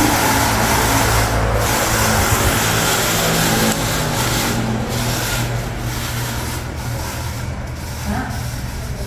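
Ventisilva VPL 65 cm, 150 W wall fan running: a steady rush of air over the motor's low hum. The sound drops in level a little under four seconds in and keeps easing after that.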